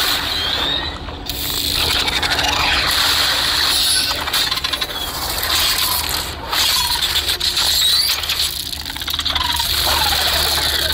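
Cartoon action sound effects of rushing, churning water and splashes, a steady noisy wash with a few faint short squeaks over it.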